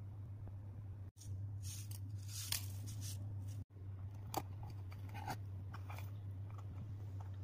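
Light crisp rattling and crinkling as candy sprinkles are shaken from a small plastic packet onto a miniature candy ice-cream cone, followed by a few small sharp taps as the cone is handled. A steady low electrical hum runs underneath.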